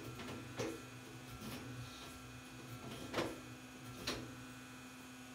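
Toyota MR2 Spyder's sequential manual transmission (SMT) running its self-test during a TCU relearn: a steady hum with four sharp clicks from the shift actuator.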